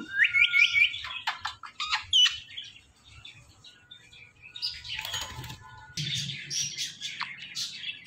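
Indian ringneck parakeets calling. There is a quick run of short rising whistled chirps in the first second, then a few sharp calls, a lull about halfway, and harsher, noisier chatter through the last few seconds.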